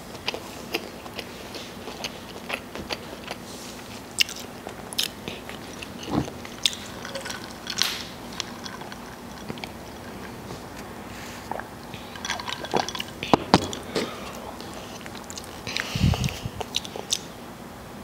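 Close-up eating sounds: chewing with many short wet clicks and smacks, a sip of iced soda through a straw partway through, and a bite into a burger near the end.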